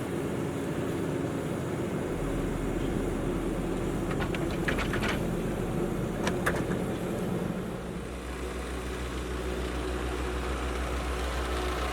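Heavy diesel engines of asphalt paving machinery running steadily, with a few sharp metallic clicks and clanks about four and six seconds in. About eight seconds in the engine sound shifts to a different, steadier low note.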